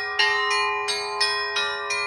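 Orthodox church bells of a seven-bell mobile belfry ringing a chime: quick strokes on the smaller bells, about three a second, over a steady deeper ringing tone held underneath.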